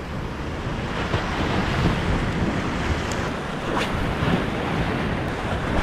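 Ocean surf breaking and washing, with wind buffeting the microphone in a steady low rumble.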